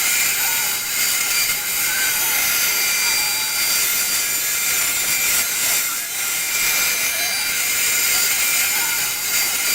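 CNC router spindle running steadily with a 1/4 inch upcut bit, cutting the outer profile of a guitar body: a steady loud hiss with a high whine.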